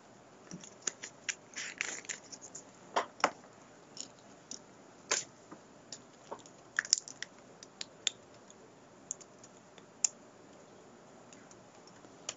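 Irregular sharp clicks and taps, a dozen or so spread over about ten seconds, with a short rustle about two seconds in: handling noise of small objects.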